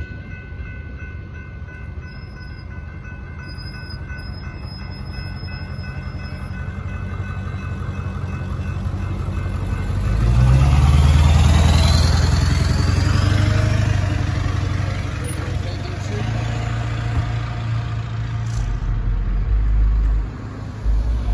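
Railroad crossing bells ring steadily over the fading rumble of a departing freight train, then stop about seven seconds in. As the crossing gates lift, road vehicles pull away and drive over the tracks: a loud low engine rumble with a rising whine about ten seconds in, then more cars passing near the end.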